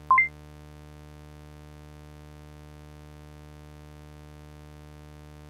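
A short rising two-note electronic chime right at the start, then a steady synthesizer drone of held low tones.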